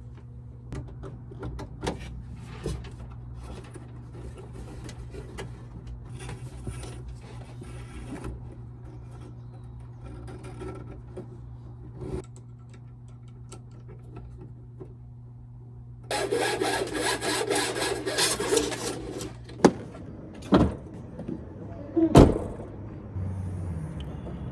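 A grinding tool working a metal latch part down to sit flush: a steady low hum with light scraping for a long stretch, then about three seconds of loud, harsh grinding, followed by a few sharp knocks.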